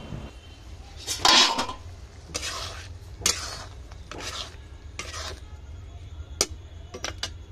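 Metal ladle stirring palak paneer in a kadai, scraping and clinking against the pan in several strokes, the loudest about a second in, with a few sharp clinks near the end.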